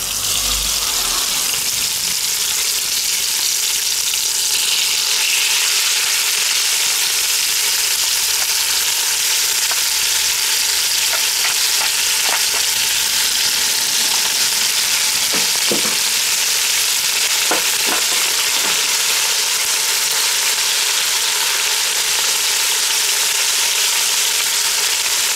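Thin strips of beef searing in hot clarified butter in a cast-iron Dutch oven: a steady, loud sizzle that swells in the first second as the meat goes in. A few short knocks come from a wooden spoon stirring the strips in the pot.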